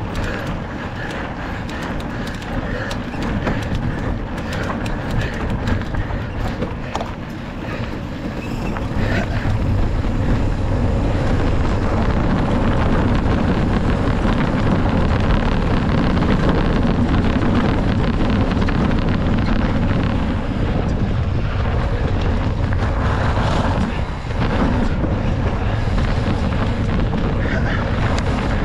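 Wind rushing over the microphone of a mountain bike rider's camera, with the bike and its tyres rattling over rough trail. The wind noise grows louder about ten seconds in.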